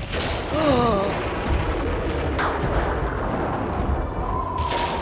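Loud, continuous rumbling sound effect in a cartoon, with a short wavering cry about half a second in and a steady high tone coming in near the end.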